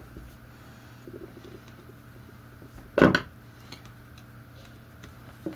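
Faint small clicks and scrapes of a screwdriver and metal clamp parts being handled while a strain-relief clamp is fitted to a Schuko plug. There is one louder short thump about three seconds in.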